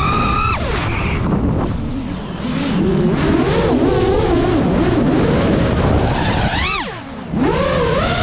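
Geprc Mark5 FPV quadcopter's brushless motors whining, the pitch rising and falling sharply with the throttle. A high whine drops away just under a second in and a lower wavering whine runs through the middle. There is a quick swoop up and down about six and a half seconds in, and the pitch climbs again near the end.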